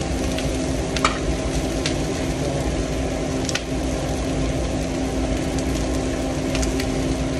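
Steady commercial-kitchen background: an exhaust hood fan running with a steady hum, and food sizzling in hot oil. Three short sharp clicks of utensils come about a second in, midway and near the end.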